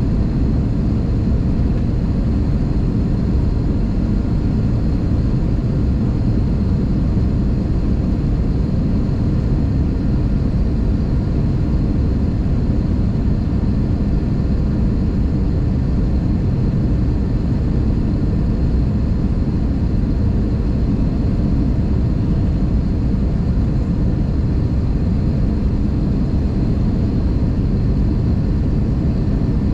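Steady in-flight cabin noise of an Airbus A320 jet airliner: an even low rumble that does not change.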